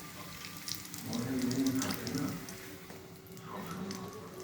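Kochuri frying in a pan of hot oil: a steady sizzle with scattered sharp crackles.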